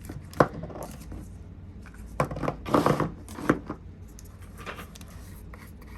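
Small items and packaging being handled: a sharp click about half a second in, then a few rustling scrapes and knocks from about two to three and a half seconds in.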